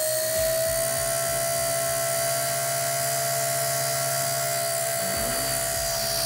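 Blade Nano S3 micro RC helicopter's electric motors and rotor running at a steady speed: an even, high whine with overtones.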